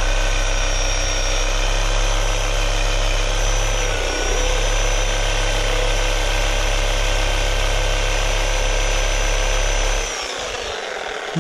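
Chicago Electric corded reciprocating saw running at speed, its blade cutting down through a wooden pallet. The motor pitch sags briefly about four seconds in under load, and near the end the trigger is released and the motor winds down.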